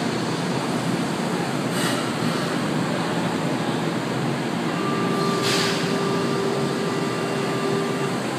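São Paulo Metro train standing at a station platform with its doors open: a steady hum of the train and station, with two short hisses of released air. About five seconds in, a steady door-warning buzzer sounds for about three seconds before the doors close.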